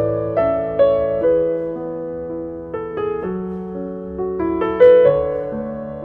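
Background piano music: a slow melody of single notes that strike and fade over lower sustained notes.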